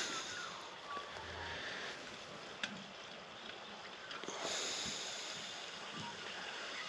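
Low, steady rushing background noise with no clear source, and one light tick about two and a half seconds in.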